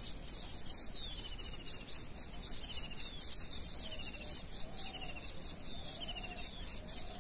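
Birds chirping and calling, with dense rapid high chirps and a short falling trill that repeats every second or so.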